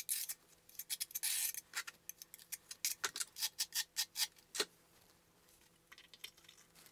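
Rapid light clicks and taps of ceramic tile pieces being handled and pressed into place in the niche, with a short scrape about a second in. The clicking stops after about four and a half seconds, leaving only faint ticks.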